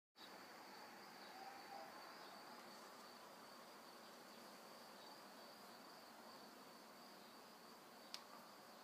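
Near silence: faint hiss with a thin, steady high-pitched whine, and a single sharp click a little after eight seconds in.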